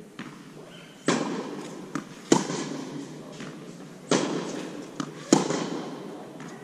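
Tennis rally: tennis balls struck by rackets strung with Signum Pro Firestorm, with ball bounces between, each sharp hit echoing in a large indoor hall. Four hard hits, roughly one every one to one and a half seconds, with lighter knocks between.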